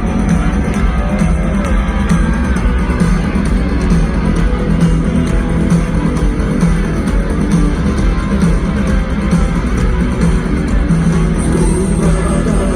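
Live rock band playing loud in a large arena: a guitar-led instrumental passage over a steady, heavy bass and rhythm, with no vocals yet.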